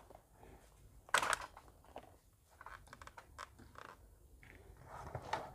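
Scattered light clicks and rustles from wires and plastic connectors being handled on a circuit board, the sharpest click about a second in.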